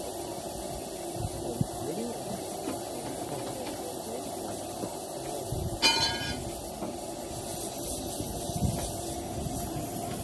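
Ravenglass & Eskdale Railway's 15-inch-gauge 2-8-2 steam locomotive River Esk standing in steam with a steady hiss while it is turned on a turntable. A brief high-pitched squeal comes about six seconds in.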